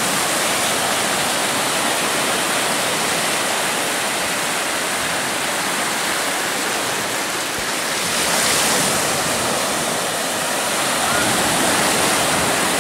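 Ocean surf breaking and washing through the shallows, a steady rush that swells a little about eight seconds in.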